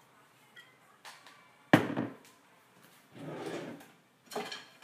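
A sharp knock about two seconds in, then a kitchen drawer sliding open with a rattle and a clack near the end as things are moved inside it.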